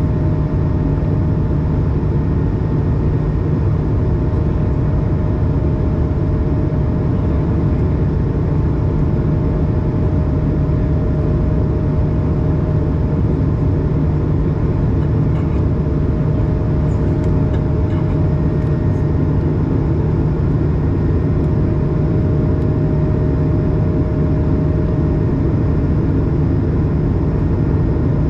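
Airbus A220's Pratt & Whitney PW1500G geared turbofan engines at climb power just after takeoff, heard from inside the cabin as a steady rush of engine and air noise with a constant humming tone running through it.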